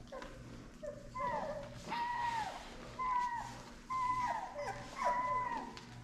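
Young pit bull puppy whimpering: a string of short, high cries, each falling in pitch, about one a second.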